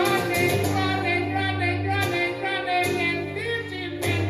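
Live song: a singer holding drawn-out sung notes over steady instrumental accompaniment.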